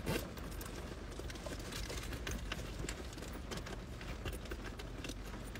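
Low, steady rumble of a car's interior, with faint irregular clicks scattered through it.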